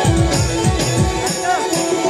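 Live Timli folk dance music played loud through a sound system: drum hits that slide down in pitch, about three to four a second, under a sustained melody line, with a jingling rattle on top.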